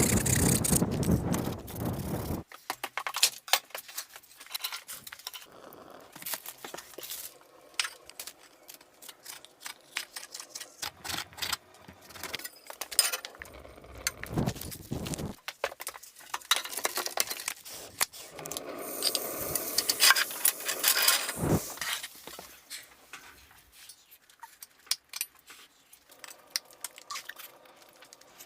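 Irregular clicking, clattering and scraping of hard objects being handled, with a louder noisy rush in the first two seconds or so.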